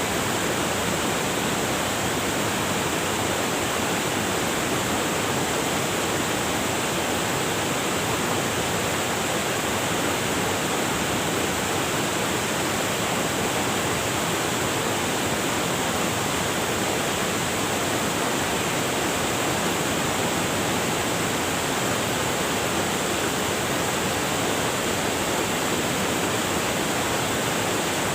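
River water rushing over rocks: a steady, unbroken rush with no change in level.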